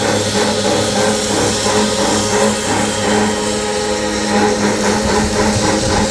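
Automatic cutting machine running: a loud, steady mechanical hum with hiss over it and a fast, regular pulsing.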